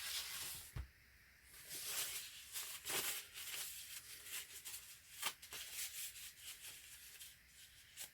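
Bare hands working on a wet acrylic-poured canvas: soft, irregular rustling and scraping with scattered sharp clicks as the paint is pushed over the corners.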